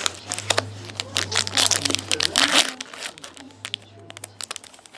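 Foil wrapper of a 2013-14 Fleer Showcase hockey card pack being torn open and crinkled. The crackling is densest about a second and a half to two and a half seconds in, then thins to light clicks as the cards are handled.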